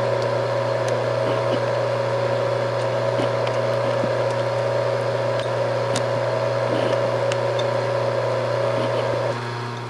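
Milling machine running with a steady low hum and a higher whine, with scattered small ticks; the whine drops away shortly before the end while the hum continues.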